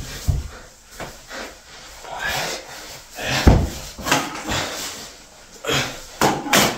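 Scuffling against a bathroom sink counter: a costume rustling and rubbing, with irregular knocks and bumps, the loudest a heavy thump about halfway through.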